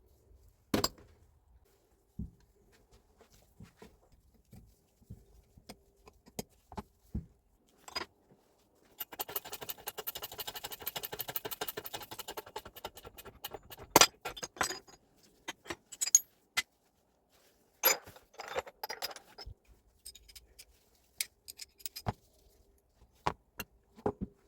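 Hand tools and small metal parts clinking and knocking on a workbench while a Hilti TE76 rotary hammer is taken apart for service. There are scattered sharp clicks, a few seconds of rapid, even clicking about halfway through, and a couple of louder single knocks.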